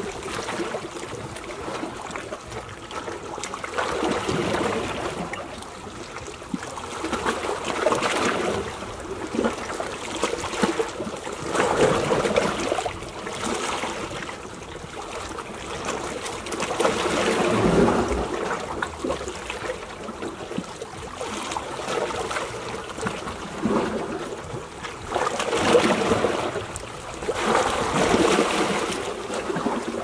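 Small sea waves lapping and washing at the shore, the rush of water swelling and falling back every few seconds.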